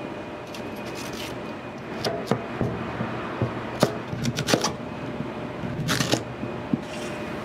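Scattered clinks and knocks of kitchen work, busiest in the middle few seconds, over a steady background hum.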